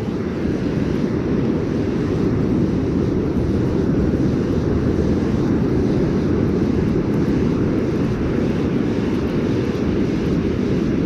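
Steady low noise of wind and ocean surf on an open beach, with no distinct events.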